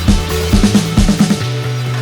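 Background music with a steady beat: a sustained bass line under drum hits, with a quick run of drum strikes about half a second to a second and a half in.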